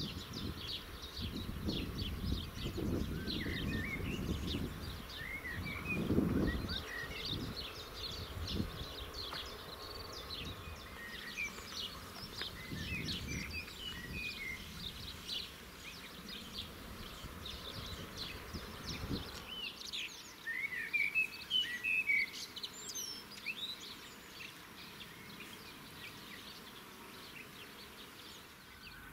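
Small birds chirping and twittering outdoors, many short calls with quick rising and falling notes. A low rumble sits underneath and stops about two-thirds of the way in.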